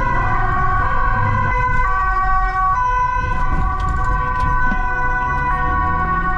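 Dutch police two-tone siren, alternating between a higher and a lower pitch, over the low rumble of a moving vehicle.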